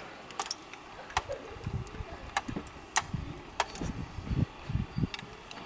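Metal chopsticks clicking and tapping against a stainless steel pot, a sharp click every second or so, over the low churning of water driven round by a small battery-powered flowing-somen machine.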